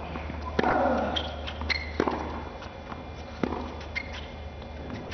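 Tennis rally: three sharp racket strikes on the ball, about a second and a half apart, with short high squeaks between them.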